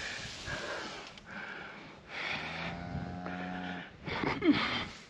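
Scottish Highland cattle breathing hard and snorting, four rough breaths in a row, with a short low grunt near the middle and a louder falling call about four and a half seconds in.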